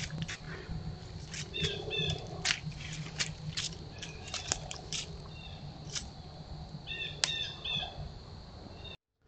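A buck's hooves stepping through dry leaves and brush close by, irregular crunches and snaps, over a steady high tone and a low hum. A few short chirps come about two seconds in and again near the end.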